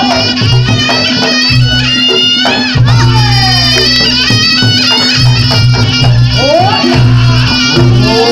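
Reog Ponorogo gamelan music played live: a shrill double-reed slompret carries a wavering, sliding melody over a steady drone, with drums and low gong notes sounding in and out.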